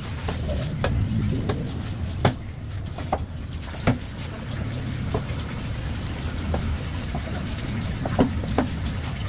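Knife chopping through a rahu fish on a cutting block: sharp knocks every second or so, the loudest about two, four and eight seconds in, over a steady low rumble.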